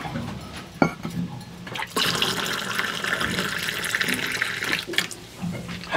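Water running from a water dispenser's spigot into a mug, starting about two seconds in and stopping about a second before the end. A light knock comes just before one second in.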